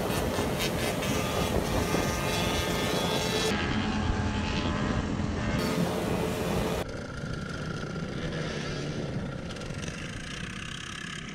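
Small mini bike engines running with wind noise. The sound changes abruptly about three and a half seconds in and again near seven seconds, where it gets quieter.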